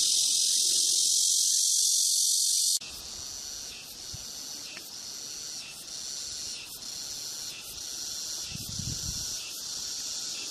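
Cicadas buzzing in a loud, dense, high-pitched chorus that cuts off suddenly about three seconds in, then softer cicada calls pulsing about twice a second.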